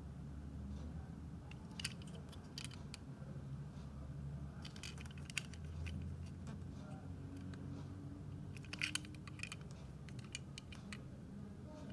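Faint scattered small clicks and light ticks, with a cluster near the middle and another about three-quarters of the way in, over a low steady hum.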